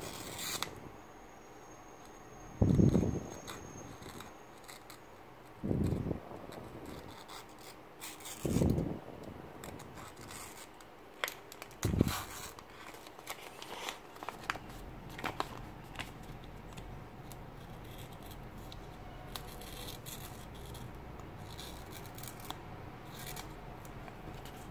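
Daiso 60-degree 9mm snap-off cutter blade, held bare in the fingers, scraping and slicing through a sheet of paper, with paper rustling, during a test of a blade that cuts poorly in its middle part. Through the first half, dull thumps about every three seconds are the loudest sounds; later, only faint scattered scrapes and clicks.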